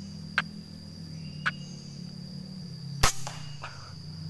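Air rifle fired once about three seconds in: a single sharp crack. Before it come two short sharp chirps about a second apart, over a steady high insect drone.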